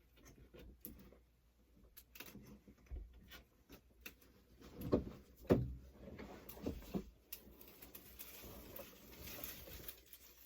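Scattered light knocks, clicks and rustles of objects being handled, with two louder thumps about five seconds in.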